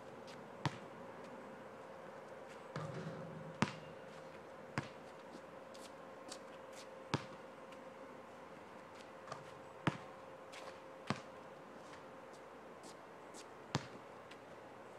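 Basketball bouncing on an outdoor asphalt court: single sharp thuds at irregular gaps of one to three seconds, as free throws are shot and the ball is dribbled and retrieved.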